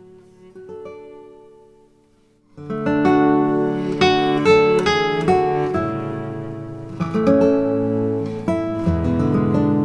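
Background music on acoustic guitar: a few soft notes fade away, then strummed chords come in loudly about two and a half seconds in and carry on.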